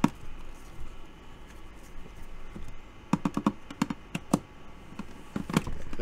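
A plastic fridge shelf tray clicking and knocking against the mini fridge's plastic interior as it is handled and slid into place: a run of sharp clicks about three seconds in, a few more a second later, and another knock near the end.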